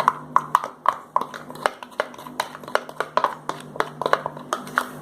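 A thickening slime mix of glue, gouache paint and baking soda being stirred in a container: quick, irregular clicks and taps of the stirrer against the container, a few a second, over a steady low hum.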